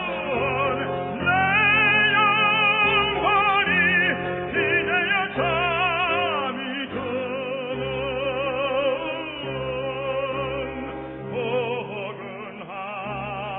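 Operatic tenor singing a slow Korean art song, long held notes with wide vibrato, over instrumental accompaniment.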